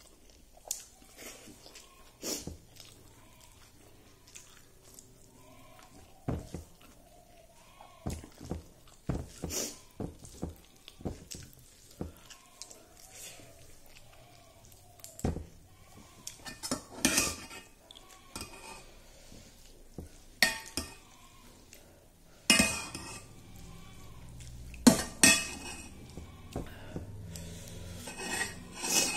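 Eating rice by hand from a metal plate: fingers mixing and scraping food against the plate, with scattered light clinks and knocks of metal. The clinks come thicker and louder in the last seven seconds or so.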